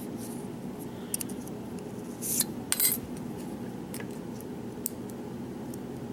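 Small metal lock parts and tools clicking and clinking as the lock is taken apart and its pins are set on a tray: scattered light ticks, with two brief clinking rattles near the middle, over a steady low hum.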